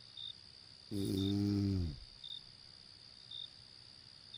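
A person snoring: one low, droning snore about a second long, starting about a second in and sagging a little in pitch as it ends. Crickets chirp about once a second over a steady high insect trill.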